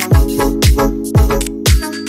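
Background music: a dance track with a deep kick drum about twice a second under held chords, the bass dropping out briefly near the end.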